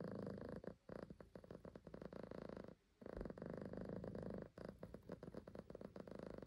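Grey-and-white cat purring, a rapid pulsing buzz in stretches of about two seconds broken by short pauses, the longest about three seconds in.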